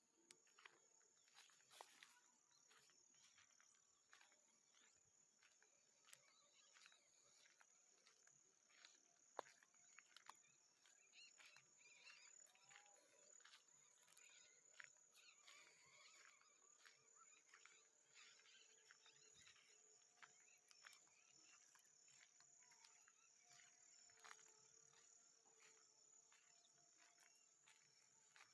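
Faint outdoor nature ambience: a steady, high-pitched insect drone with scattered clicks and a few faint animal calls.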